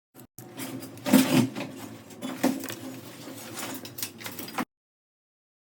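Workshop machinery running with a steady hum and a clatter of knocks, the loudest about a second in and again about two and a half seconds in; it cuts off suddenly before the end.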